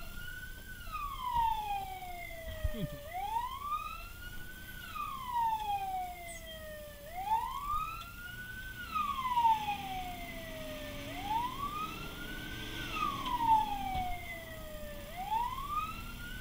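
Fire truck's wail siren heard from inside the cab, each cycle rising quickly and falling slowly over about three seconds, repeating every four seconds over the truck's engine and road noise.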